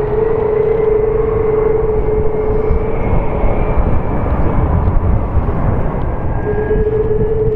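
A Boeing 747-400 Freighter's four Rolls-Royce RB211-524 turbofans running at taxi power: a steady jet rumble with a whine held on one pitch. The whine fades out about halfway through and comes back near the end.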